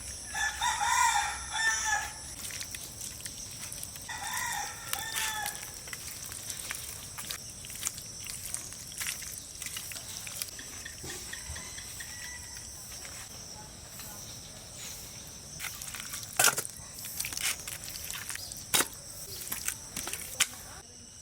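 A rooster crows twice, a few seconds apart, over a steady high buzz of insects. Two sharp knocks come near the end.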